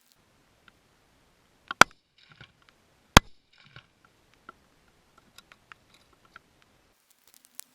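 Two sharp, loud clicks about a second and a half apart, each followed by a brief soft rattle, with faint scattered ticks between.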